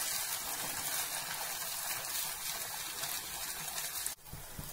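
Batter-coated pappadam deep-frying in hot coconut oil: a steady sizzling hiss of bubbling oil, which drops off abruptly about four seconds in.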